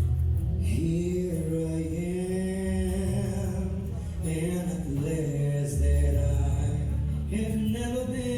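A male singer's voice singing a slow melody over a backing track with deep, sustained bass notes, the voice coming in about a second in.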